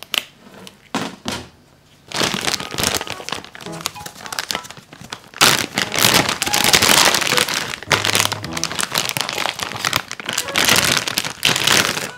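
Zip-top plastic bag crinkling loudly as gloved hands open it and pull out a block of raw meat. The crinkling starts about two seconds in, after a few light knocks as items are set on a metal mesh table.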